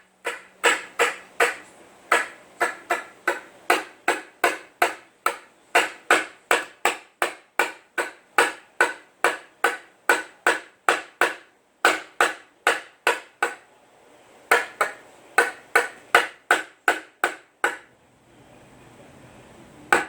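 A rubber ball is bounced over and over on a hard floor, each bounce a sharp knock with a short ringing ping, about two to three a second. The bouncing pauses briefly partway through and stops for a couple of seconds near the end before starting again.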